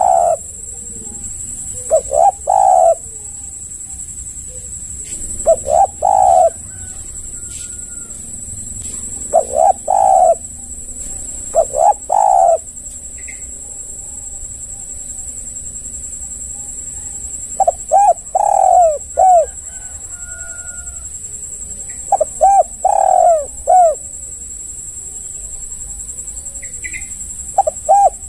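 Spotted dove (tekukur) cooing its 'kuk' song: short phrases of several low coos, repeated every few seconds, with the phrases in the second half running longer. A steady high-pitched hiss runs underneath.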